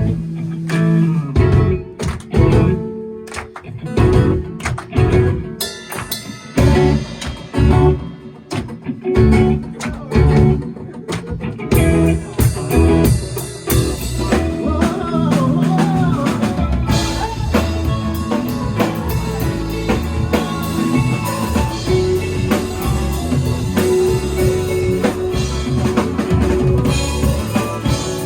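A band playing with drum kit and guitars: stop-start accented hits for the first dozen seconds or so, then the full band playing steadily.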